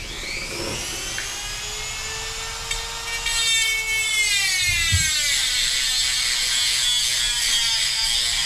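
Dremel rotary tool spinning up to a steady high whine. About five seconds in, its pitch drops as it bites into the dirt bike's frame, and a rough grinding cut runs on from there.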